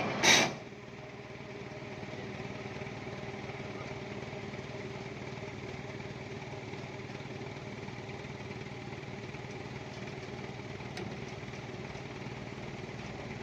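A vehicle engine running steadily at low revs. Just after the start there is a brief loud burst, like a short hiss.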